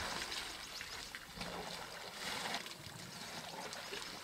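Quiet splashing and trickling of water as African elephants drink at a waterhole, dipping their trunks in and spilling water from them.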